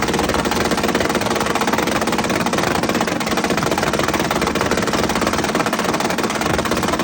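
Car engine running loud and steady with a rough, rapid rattle.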